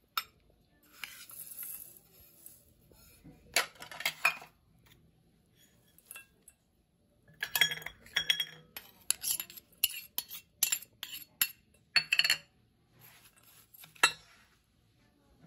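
A metal spoon clinking and scraping against a stainless-steel bowl as chopped nuts and garlic are tipped onto chili flakes. The clinks come in scattered clusters, thickest in the middle, with one sharp clink near the end.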